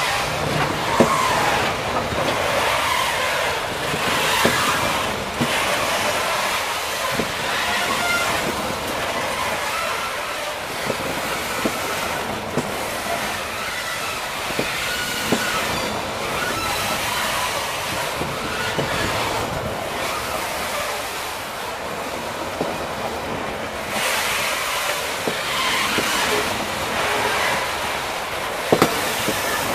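Freight train of boxcars rolling past at close range: a steady rattle and rumble of the wagons, with scattered wheel clicks and knocks over the rail joints and faint wheel squeal.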